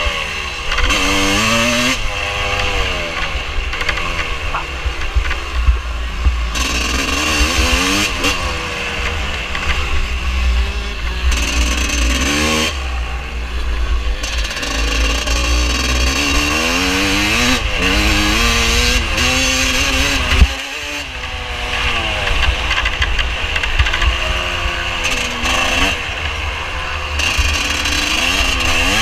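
Vintage motocross motorcycle's engine, heard from an onboard camera, revving up and falling back again and again as it accelerates and shifts through the gears, with a heavy wind rumble on the microphone. About twenty seconds in there is a sharp knock, and the throttle shuts for a moment before the revving picks up again.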